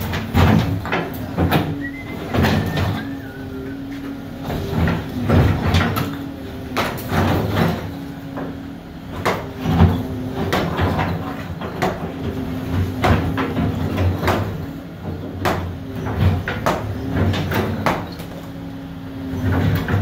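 Case SR220 skid steer loader's diesel engine running steadily, with repeated knocks, clatters and scrapes as broken brick pavers and rubble are dug and pushed.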